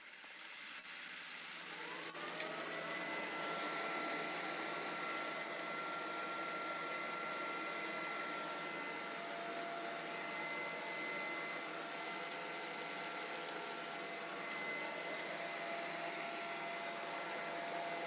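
iCLEBO Omega robot vacuum starting up: its motor whine rises in pitch over the first two seconds, then it runs steadily with a high whine over a hiss.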